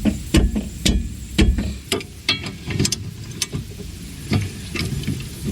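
Ratchet wrench clicking in uneven strokes, a few clicks a second with short pauses, as a brake caliper bracket bolt is loosened.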